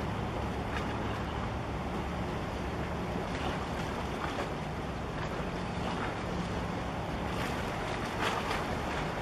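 Low steady drone of a large container ship passing close by, under a steady rush of wind and water, with a few brief splashes of small waves.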